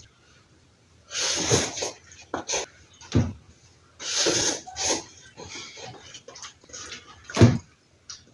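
Close-up slurping of instant cup noodles: two long slurps, about a second in and again about four seconds in, with smaller wet chewing and smacking sounds between them. A short louder mouth sound comes near the end.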